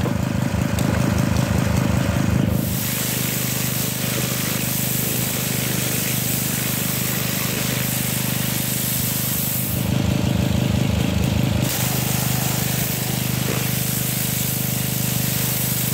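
Briggs & Stratton 190cc overhead-valve engine running a pressure washer, with the high-pressure water jet hissing as it sprays. The spray stops for the first two and a half seconds and again for about two seconds near the middle, and there the engine's pulsing comes through louder.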